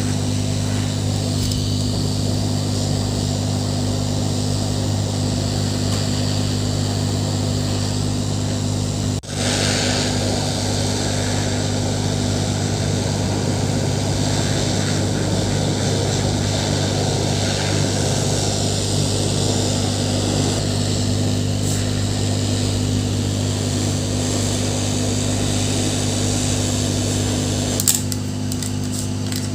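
Electric air blower running steadily: a hum with a rush of air. It cuts out for a moment about nine seconds in and shifts near the end.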